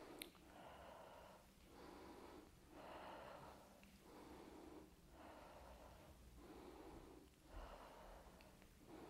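A woman's faint, rhythmic breathing, each breath in or out lasting about a second, as she recovers from brisk walking exercise.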